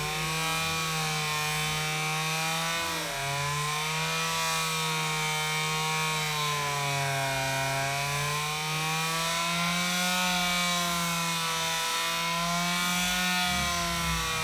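Chainsaw cutting into a palm tree trunk, its engine running continuously with the pitch rising and dipping slowly as the cut loads and frees it.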